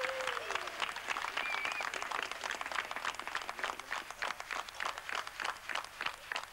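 A crowd clapping steadily, with a few voices calling out over it in the first two seconds.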